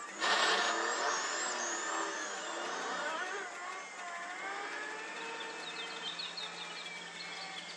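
A small van's engine revving and running, its pitch rising and falling, with birds chirping.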